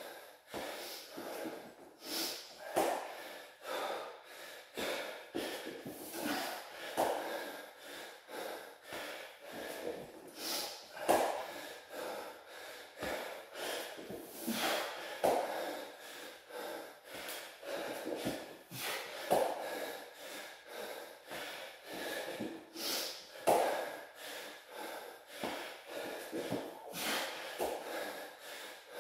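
A man breathing hard from exertion during burpees and squats, with loud breaths every second or two. Short thuds and scuffs of hands and bare feet on a floor mat come between the breaths.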